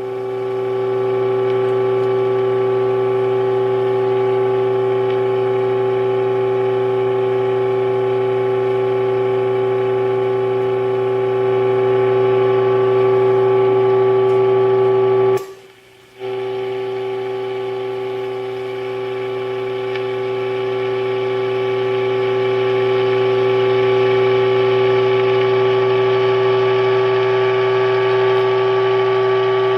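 A Philco model 64 radio's speaker sounds a steady, loud test tone of about 400 Hz with a low hum under it. This is the modulation tone of a signal generator fed into the set for alignment. The tone cuts out briefly about halfway through, then returns and swells louder at times.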